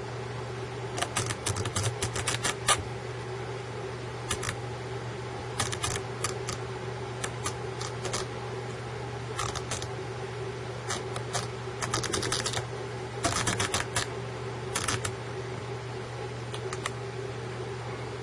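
Elevation turret of a Schmidt & Bender PMII 3-27x56 riflescope (MTC LT turret) turned by hand, its detents clicking in quick runs of clicks with short pauses between, as it is dialed back down toward zero. A steady low hum runs underneath.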